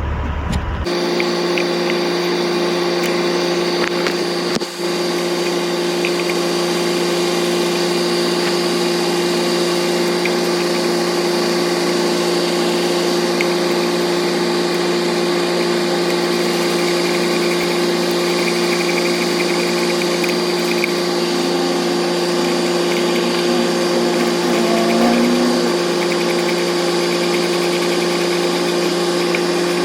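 Steady engine hum that does not change in pitch, setting in abruptly about a second in.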